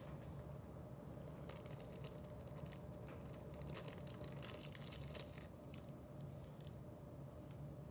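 Light handling noise from small objects, a quick run of faint clicks and rustles, over a low steady hum.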